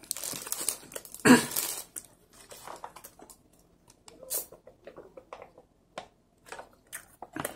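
Close-up eating sounds: a bite into a soft cream-filled bun and chewing, loudest about a second and a half in, then soy milk drunk from a pouch with scattered small swallowing and mouth clicks.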